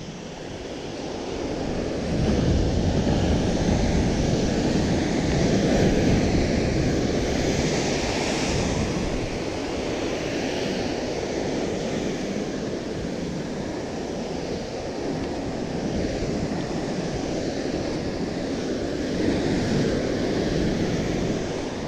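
Ocean surf breaking and washing over the rocks below, a continuous rush that swells about two seconds in, with wind buffeting the microphone.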